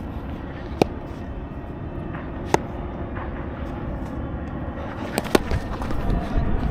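Steady low outdoor rumble broken by sharp knocks: one about a second in, another a couple of seconds later, and a quick pair near the end.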